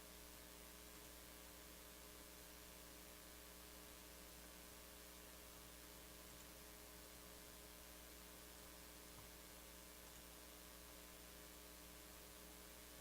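Near silence: a faint steady electrical hum with a light hiss underneath.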